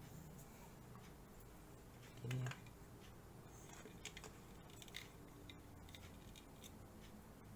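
Faint, scattered clicks and ticks of hard plastic model-kit parts being handled and pressed together, with one short low hum about two seconds in.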